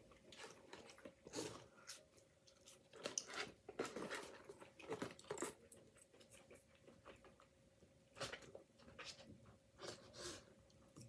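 Faint close-up chewing of poutine, with a fork digging into the paper cup, in irregular short bursts over a faint steady hum.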